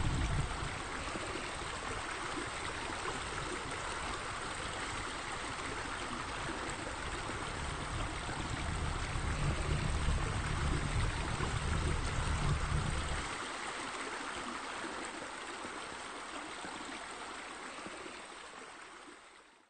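Water trickling and splashing from an urn fountain, a steady rushing that grows a little louder about halfway through and fades out at the end. A low rumble under it drops away about two-thirds of the way in.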